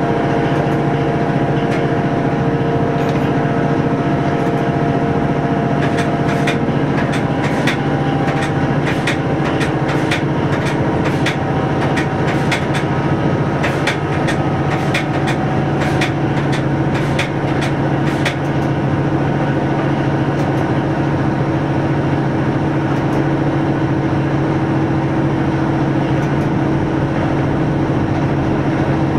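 A train running, heard from inside the driver's cab: a steady engine and running noise with a few held tones. For a stretch in the middle comes a run of sharp, irregular clicks, a couple each second.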